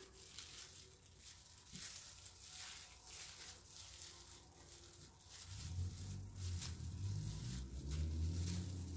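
Faint, soft rustling and rubbing of thin plastic gloves as the hands work tweezers and a cotton round over a mannequin head's brow. About halfway through, a low rumble comes in underneath.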